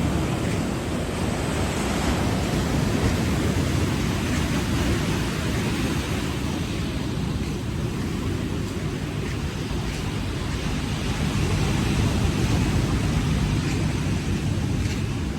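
Sea waves washing onto a sandy beach: continuous surf, swelling a little about twelve seconds in.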